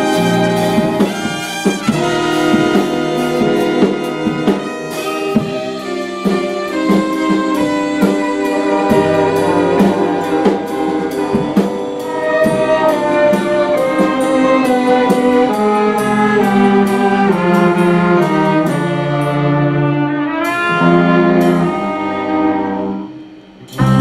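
A small string ensemble of violins and cellos playing a melody with a trumpet. The music drops away briefly near the end and comes back in louder.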